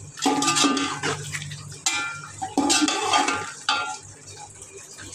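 A spoon stirring chicken pieces in wet masala in a large aluminium pot, clanking and scraping against the pot's side four or five times at an uneven pace, over a low steady hum.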